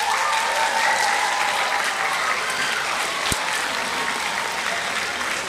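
Audience applauding steadily, with one sharp click a little past the midpoint.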